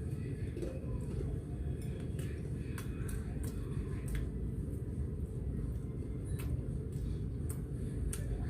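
Steady low background hum with scattered faint clicks and taps from eating.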